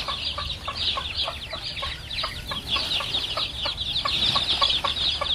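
Chickens clucking in a steady run of short clucks, over a constant chorus of high, falling peeps.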